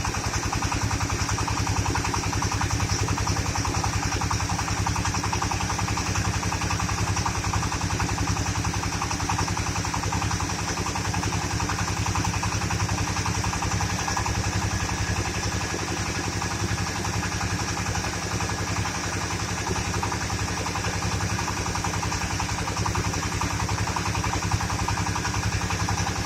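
Mobile rice milling machine running steadily: an engine chugging with a fast, even beat under a constant mechanical hum and hiss from the milling machinery.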